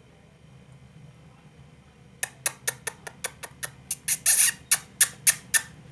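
Indian ringneck parrot giving a rapid run of short, sharp calls, about four or five a second, starting about two seconds in and stopping shortly before the end.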